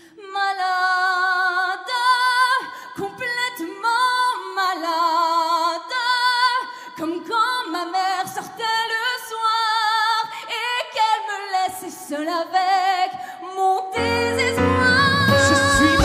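A woman singing live with strong vibrato and long held notes, with little accompaniment under her voice; about fourteen seconds in, the band comes in with bass and drums.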